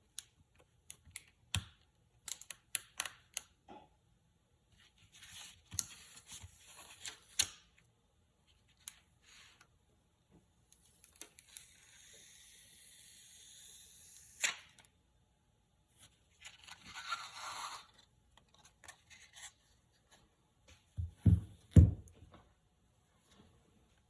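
A new phone screen protector and its plastic films being handled: scattered clicks and taps, crinkling, and a few seconds of steady peeling hiss about halfway through. A couple of heavier thumps come near the end.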